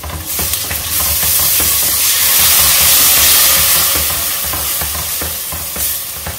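Wet blended ginger, garlic and green chilli paste sizzling loudly in hot coconut oil with onions and spices in a stainless steel pot. A spatula stirs and scrapes the pot throughout. The hiss swells to its loudest about three seconds in, then eases.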